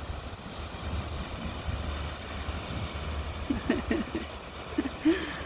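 Wind rumbling on the microphone over surf washing against a rocky shore, with a few short cries in the second half.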